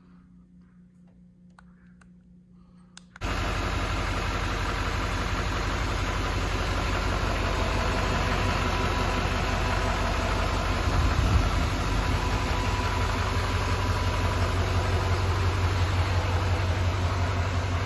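A Duramax L5P 6.6-litre V8 turbo-diesel idling steadily, cutting in abruptly about three seconds in after a faint stretch.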